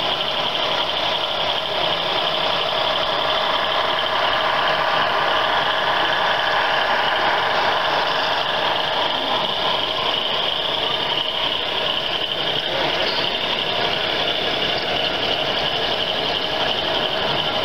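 Steady diesel engine rumble from a model diesel locomotive's sound system, running without a break as the train moves along the layout.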